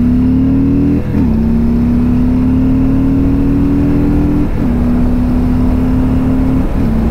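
2020 Harley-Davidson Softail Standard's Milwaukee-Eight 107 V-twin accelerating hard, its pitch climbing through each gear and dropping at three upshifts, about one, four and a half and six and a half seconds in.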